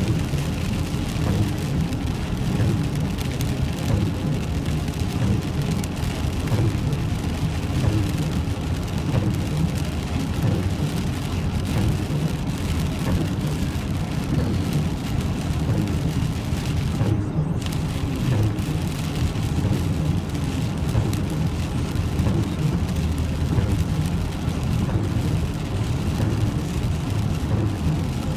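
Heavy rain heard from inside a moving car on a wet highway: a steady low rumble of the car on the road with an even hiss of rain and tyre spray.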